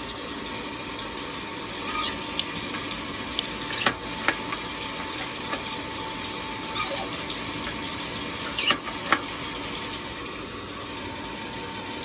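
ROEST sample roaster's hot-air fan blowing steadily with a faint steady whine, and a scattering of sharp pops, two close pairs the loudest, from the coffee beans cracking during the development phase after first crack.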